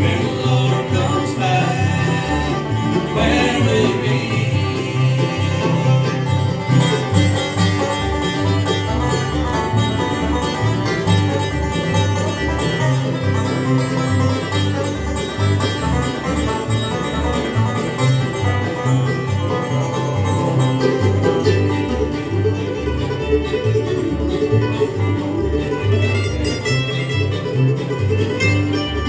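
Live bluegrass band playing an instrumental break: banjo, guitar, fiddle and mandolin over a steady pulse of upright bass notes.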